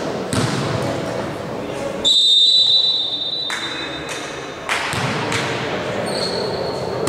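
Referee's whistle blown in one steady, high-pitched blast of about a second and a half, about two seconds in, signalling the serve. Around it are a few thuds of a volleyball bounced on the hardwood court floor.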